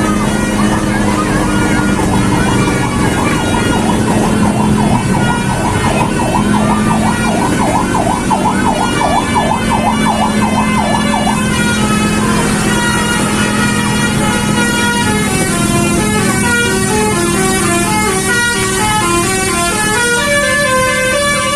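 A bus's Basuri multi-tone 'telolet' horn. First it sounds a fast warbling, siren-like tone, then from about halfway it plays a melody of stepped horn notes. A steady low hum runs underneath throughout.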